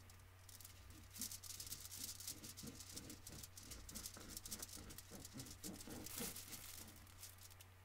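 Knife cutting around an orange to halve it: faint, irregular scraping and rustling of blade and peel, over a steady low hum.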